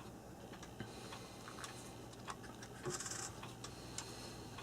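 Faint scattered clicks and light scraping of small metal parts being handled while a clock movement is fitted, with a short rustling scrape about three seconds in.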